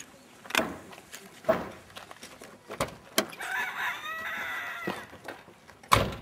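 A rooster crows once, a drawn-out call starting a little past halfway through. Around it come several sharp knocks and clunks from a car door being opened and handled, ending in a loud thump as the driver's door shuts near the end.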